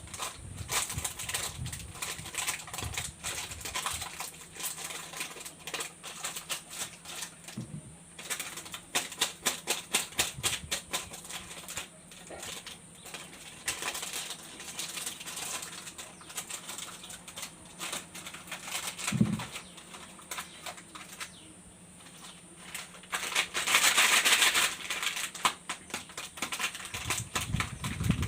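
Candy and chocolate wrappers crinkling and crackling as they are handled and unwrapped, with quick runs of crisp crackles and a louder burst of rustling near the end.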